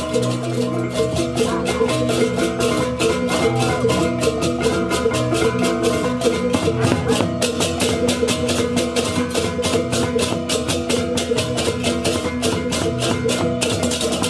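Balinese baleganjur gamelan music: a fast, steady stream of clashing cymbal strokes over ringing gong and metallophone tones.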